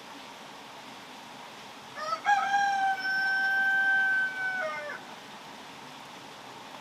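A rooster crows once, starting about two seconds in: a quick rising opening, a long held note, and a falling drop at the end. A steady background hiss lies under it.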